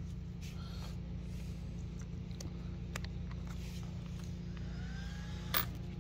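Plastic battery connectors and leads on an electric RC truck being handled: short clicks and rubbing, with one sharp click about five and a half seconds in. A steady low hum runs underneath.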